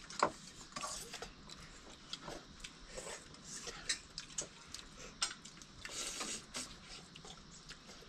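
Irregular light clinks and taps of utensils against metal dishes and pots, spaced unevenly and at varying strength.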